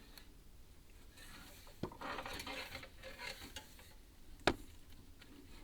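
Scraping and knocking of a chimney inspection camera and its push rod moving down a clay-tile flue: a sharp knock about two seconds in, a stretch of rustling scrape, then a louder single knock about four and a half seconds in.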